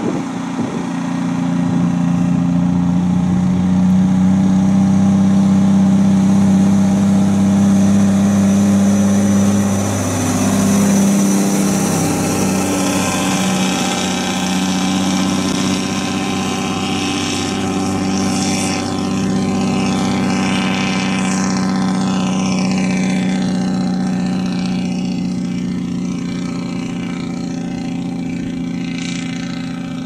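Diesel engine of a loaded logging truck running steadily under load, its note breaking briefly about ten seconds in. Later, falling whines as the trucks pass.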